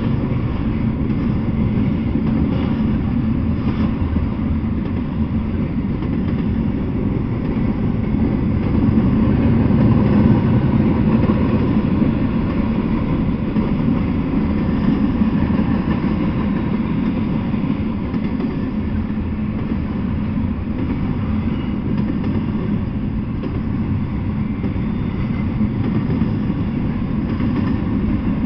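Double-stacked intermodal freight train rolling past, its well cars' wheels on the rails making a steady low noise that swells a little about ten seconds in.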